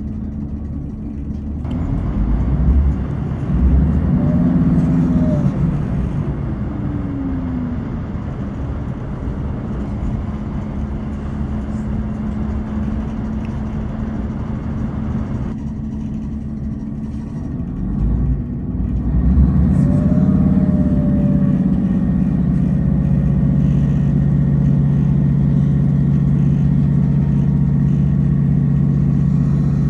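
Diesel passenger train's engine running, its note rising and falling a few seconds in, then climbing again about two-thirds of the way through and holding a steady drone.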